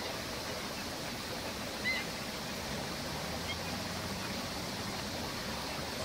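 A black-winged stilt gives one short, high call about two seconds in, followed by a couple of fainter short notes, over a steady rushing background noise.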